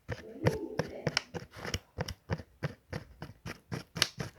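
Utensil clicking and scraping against the sides of a cup, about five clicks a second, while stirring a glue slime mixture that has just had boric acid water added.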